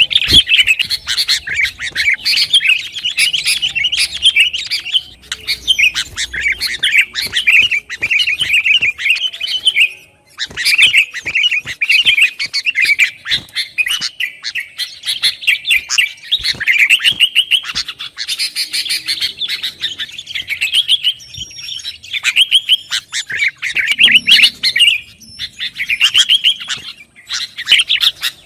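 Sooty-headed bulbul chattering in fast, dense runs of chirps, with a brief break about ten seconds in.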